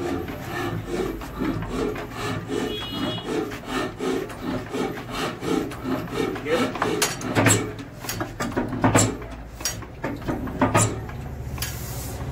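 Old Ruston diesel engine being hand-cranked with a starting handle: a rhythmic sound repeating about three times a second, then several sharp knocks in the second half. The engine does not fire: the cranking fails to swing it round fully.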